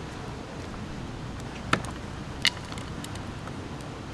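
Two sharp metallic clicks about three-quarters of a second apart, the second ringing briefly, over a steady low hum.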